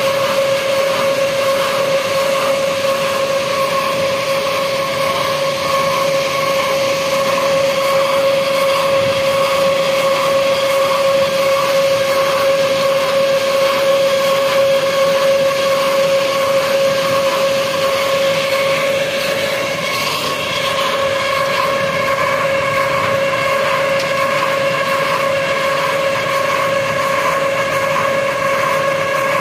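Stone-crusher plant and its loading conveyor running: a loud, steady mechanical drone with a constant humming tone, as crushed stone pours off the belt into a tipper truck.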